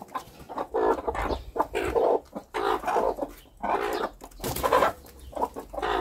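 Broody hens clucking over and over while they feed, a string of short calls with a louder one a little past the middle.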